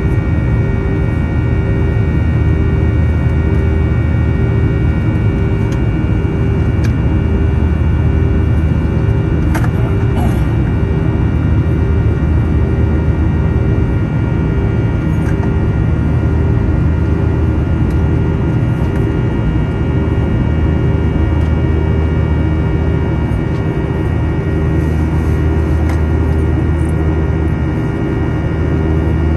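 Boeing 737-800's CFM56-7B turbofans at climb power, heard from the forward cabin. There is a steady low rumble, and over it a buzzing drone made of several steady fan tones. One lower tone pulses in a slow, even beat.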